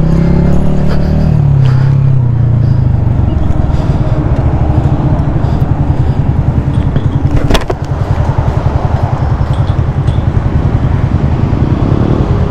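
Honda CG 125's single-cylinder four-stroke engine dropping in revs over the first couple of seconds, then settling into a steady low-revving putter, as at idle. A single sharp click comes about seven and a half seconds in.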